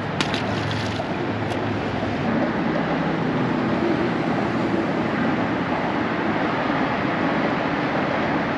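Steady rush of traffic crossing a highway bridge, swelling slightly a few seconds in as a vehicle passes, with a few light clicks in the first two seconds.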